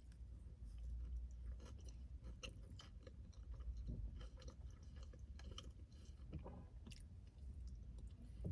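Faint chewing of food, with small irregular mouth clicks.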